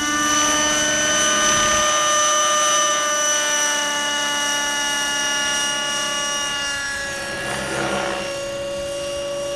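Align T-Rex 600 Nitro RC helicopter in flight: its O.S. .50 Hyper two-stroke glow engine and rotors give a steady high whine. The pitch shifts briefly about seven to eight seconds in as the helicopter manoeuvres.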